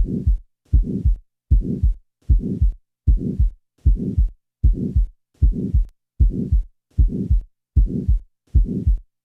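Human heartbeat with a mid-systolic ejection murmur: each first heart sound is followed by a crescendo-decrescendo murmur that dies away before the second sound. It repeats steadily at about 77 beats a minute.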